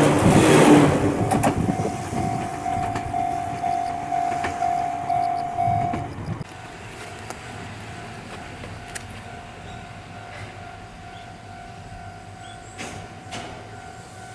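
Ohmi Railway electric train passing close by, its wheels running along the rails and fading as it pulls away, with a steady high ringing tone. About six seconds in, the sound cuts to a much quieter scene with a train in the distance.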